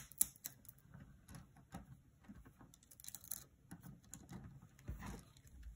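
Plastic pony beads of a beaded kandi cuff clicking against each other as they are handled and pulled tight on fishing line: faint, irregular small clicks, busiest about three seconds in.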